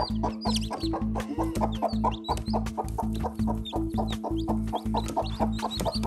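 Newly hatched chicks peeping in short, high, downward-sliding chirps over background music with a steady beat.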